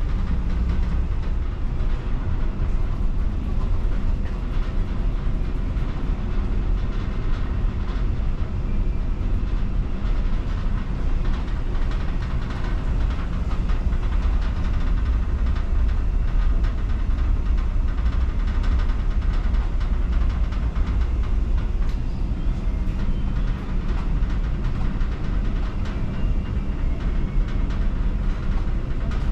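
Steady low rumble of the ferry Sunflower Furano's engines and machinery, heard inside the ship as a constant deep drone.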